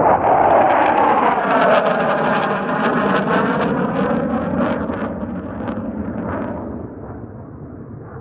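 F-15 twin-engine fighter jet passing low overhead. Its engine roar is loudest at the start, with a sweeping, phasing whoosh. It then fades away, crackling as it recedes.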